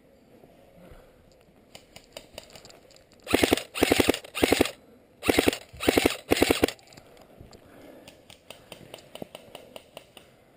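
Airsoft electric gun fired on full auto in six short bursts, two groups of three, each a fast string of shots. Fainter scattered clicks come before and after the bursts.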